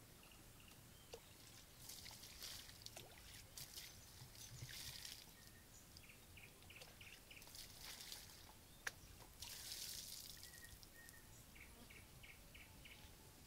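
Faint outdoor ambience: a bird calls in a quick run of short repeated notes about six seconds in and again near the end, with soft rustling bursts and a single sharp click in between.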